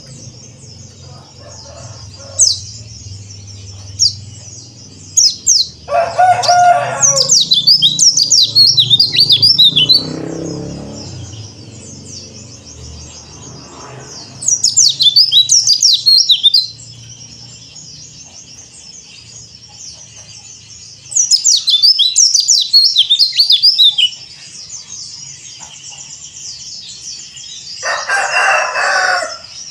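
Yellow-breasted white-eye (pleci dakbal) chirping steadily, with three loud bursts of rapid, high twittering song. A lower, harsher call comes in twice, about six seconds in and near the end.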